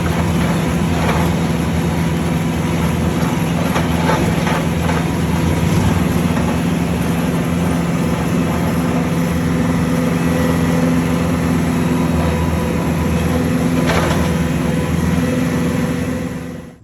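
An engine running steadily at constant speed. It is loud throughout, with a few faint knocks and rattles over it, and stops abruptly just before the end.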